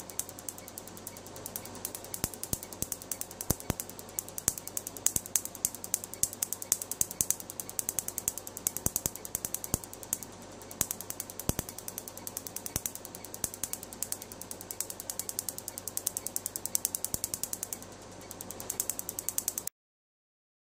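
MedLite C6 Q-switched Nd:YAG laser firing rapid pulses into tattooed skin, each pulse a sharp snap, several a second, over a faint steady hum. The snapping pauses briefly twice and stops abruptly near the end.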